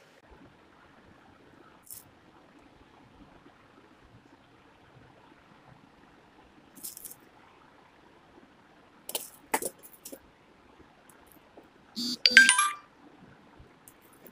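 Small seed beads clicking against a steel plate and the needle as they are picked up and threaded, a few light clicks and then a brief jingling clatter near the end.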